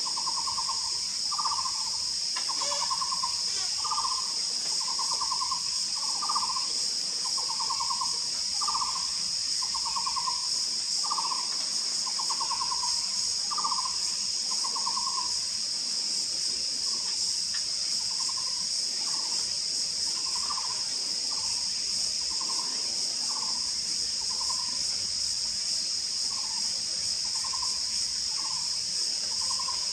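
Taiwan barbet calling: a trilled note alternating with a shorter note, repeated about every second and a quarter, louder in the first half and softer from about 16 seconds in. A steady high insect drone runs underneath throughout.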